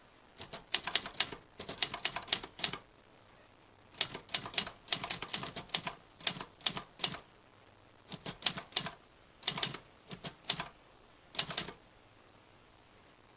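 Typewriter keys struck in quick runs of sharp clicks, each run about a second long, with short pauses between.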